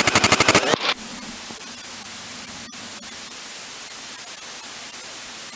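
Kitfox light aircraft engine starting up, with rapid, even pulses in about the first second. It cuts abruptly to a steady hiss.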